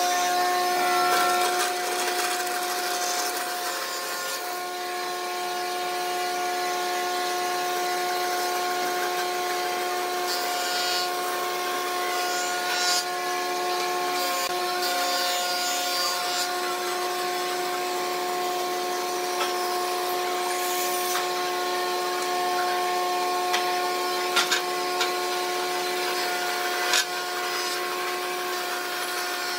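Wood lathe running with a steady motor whine while a turning tool cuts the spinning wood, with a few sharp ticks near the end.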